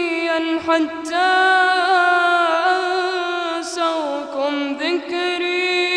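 A boy's voice reciting the Quran in melodic tajweed, drawing out a long ornamented note on a steady pitch with small wavering turns. The note dips and breaks briefly a few times in the second half.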